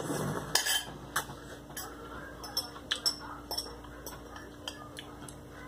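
Noodles slurped from a spoon in the first second, then a string of light clinks as a metal fork and spoon tap and scrape against a glass bowl of noodle broth.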